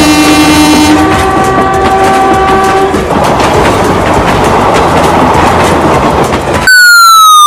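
Train sound effect: a train horn held for about three seconds, then the steady rumble and clatter of a train running on the rails. Near the end a loud falling whistle-like tone cuts in.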